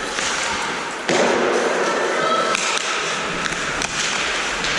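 Ice hockey rink at a faceoff: skate blades scraping the ice and sticks clacking, echoing in an indoor arena. A louder burst of scraping comes in about a second in as play starts.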